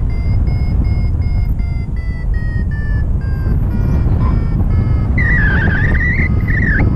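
Paragliding variometer beeping about four times a second, its pitch slowly falling over the first three seconds, over a steady rush of wind on the microphone. The beeps are the vario signalling that the glider is climbing. Near the end a louder wavering tone sounds for about a second and a half.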